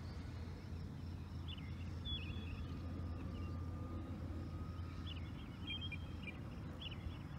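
A distant electric RC model plane in flight, an E-flite Cirrus SR22T: its motor and propeller give a faint whine that rises slightly between about two and four seconds in. Under it runs a steady low rumble, with scattered high chirps.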